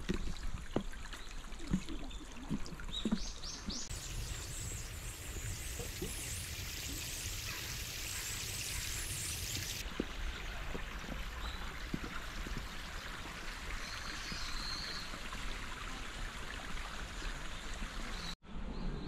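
Footsteps knocking on a wooden plank bridge for the first few seconds, then the steady trickle and rush of a small garden stream.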